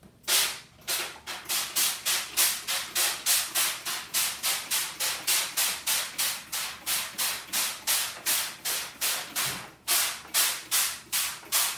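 Hand trigger spray bottle squirting liquid in quick, even spritzes, about three a second, with a brief pause about nine and a half seconds in.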